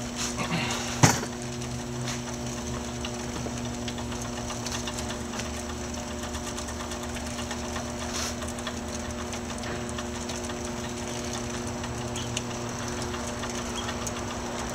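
Treadmill motor running slowly and steadily with an even hum, driving a bicycle-wheel and paracord pulley line at a crawl. A single sharp knock about a second in.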